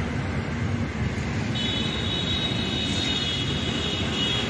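Steady low rumble of road traffic, with a thin high whistling tone that joins about a second and a half in and holds steady.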